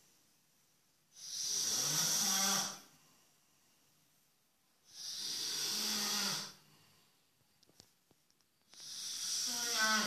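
A person snoring: three long snores about four seconds apart, each a buzzing, rattling drone over a breathy hiss.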